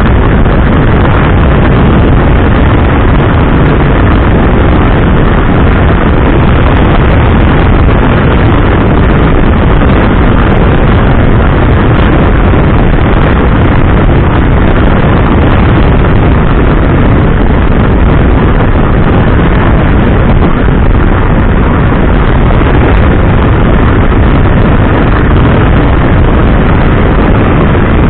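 Wind rushing over the microphone of a motorcycle-mounted camera at road speed, a steady loud roar that buries the motorcycle's engine and tyre noise.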